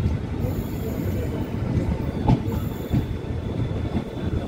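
Train wagons rolling past on the rails, a steady rumble with irregular knocks from the wheels over the track joints and a faint high, steady whine from the wheels.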